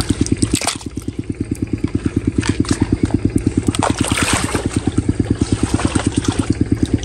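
A small engine running steadily with a fast, even throb, under the squelches and drips of hands scooping wet mud and water.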